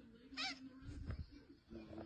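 A domestic cat gives one short, faint meow about half a second in.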